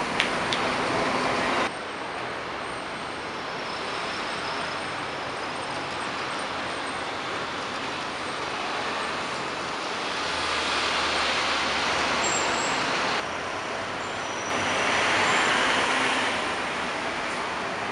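Scania K230UB single-deck diesel bus driving off and passing, mixed with road traffic noise. A low steady engine note comes in for a couple of seconds past the middle. The sound changes abruptly a few times.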